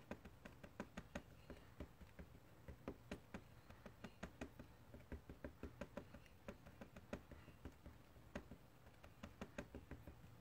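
Faint, irregular light taps, roughly two to four a second, of a dye ink pad being dabbed edge-first along a background stamp to ink it.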